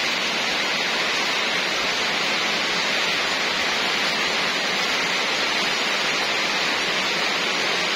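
Heavy rain falling, a steady even hiss of downpour with no break.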